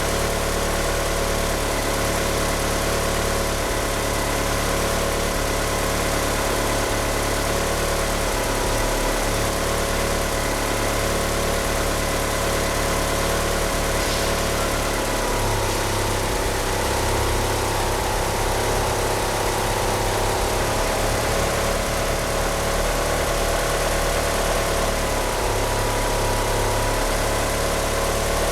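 1G Mitsubishi Eclipse GSX's turbocharged 2.0-litre 4G63 inline-four idling roughly on 850cc injectors, with the uneven low rumble of an engine that can't rev up properly. A steady squeal that wavers slightly runs over it, from the slipping power-steering pump belt.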